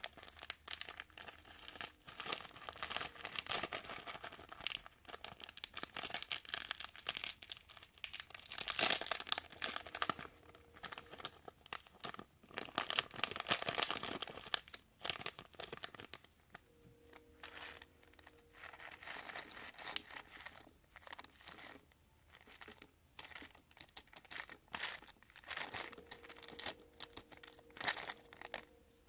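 Crunchy slime made from Tide detergent and Elmer's Magic Liquid being squeezed and pulled by hand, giving dense crackling and popping. It is louder and busier in the first half, goes sparser and quieter past the middle, then picks up again near the end.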